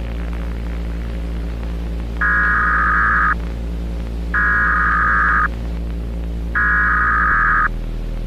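Three bursts of Emergency Alert System SAME header data tones, the warbling digital header that opens an EAS alert, each about a second long and about a second apart, over a steady low drone that shifts near the end.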